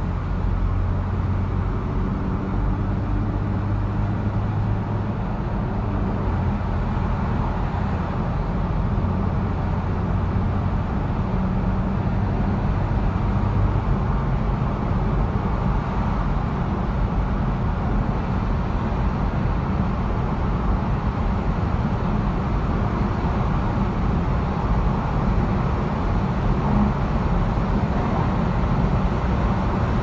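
Car driving through a road tunnel: steady tyre and engine noise, with a low hum in the first half.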